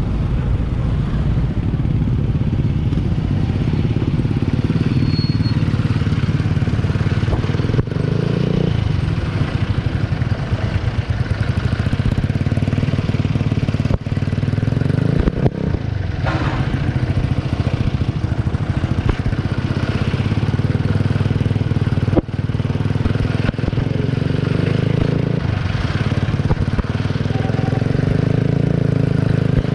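Small motorcycle engine running steadily while riding, its note shifting a few times. A couple of sharp knocks are heard about halfway through and about three-quarters of the way in.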